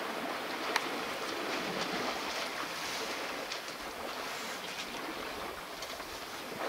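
A herd of African elephants wading and splashing in a shallow waterhole: a steady wash of splashing water with a few faint ticks.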